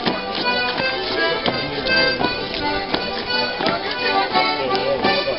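Lively traditional folk dance tune played live to accompany a long sword dance, its melody moving in quick, evenly stepped notes over a steady beat.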